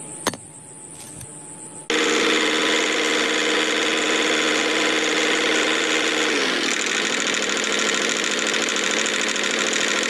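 A click, then about two seconds in the small electric motor and gears of a hand-built miniature toy tractor start running loudly and steadily, the pitch shifting about seven seconds in.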